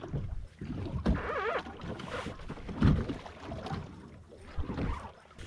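Water lapping and slapping against the hull of a small powerboat at rest on open water, heard as irregular low thumps and knocks. A brief wavering tone sounds a little over a second in.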